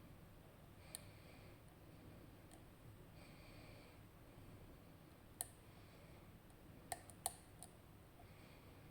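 Small, sharp clicks of a lock pick and tension wrench working the pins of a RUKO Garant high-security cylinder with gin spool drivers during picking: a single click about a second in, another about halfway, and a quick cluster of three near the end.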